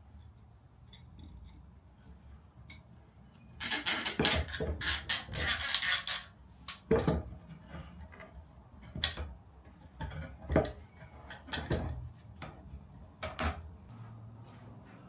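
Wooden stretcher being worked into the holes in a stool's turned legs: a couple of seconds of wood scraping and clicking, then a series of single sharp knocks of wood on wood.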